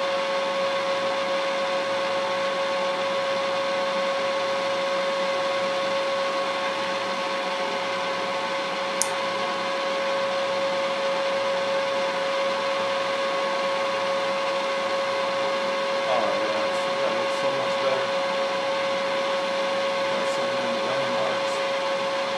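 Milling machine running with a steady whine as a coated end mill takes a cut on a workpiece held in the vise, with one sharp click about nine seconds in.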